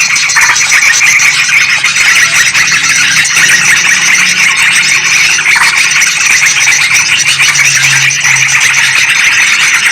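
Dense, unbroken chorus of yellow-vented bulbuls and sooty-headed bulbuls chattering agitatedly, many chirping calls overlapping. It is a bulbul lure call.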